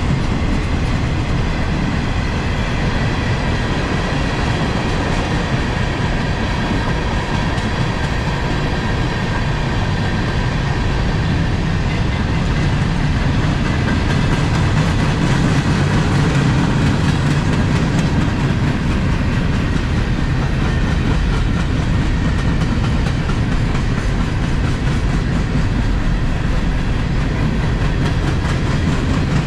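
Freight train's boxcars rolling past: a steady rumble of steel wheels on the rails, with clickety-clack.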